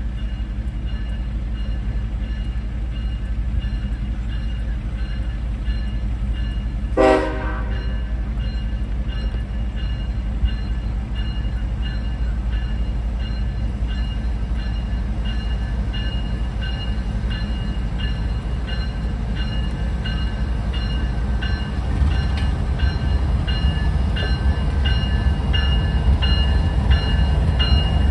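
Railroad crossing bell ringing steadily over the low rumble of a diesel locomotive, which grows louder in the last few seconds as the locomotive rolls onto the crossing. A short horn blast comes about seven seconds in.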